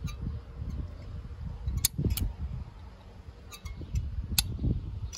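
A caulking gun clicking a few times as its trigger is squeezed, sharp short clicks over a low, uneven rumble.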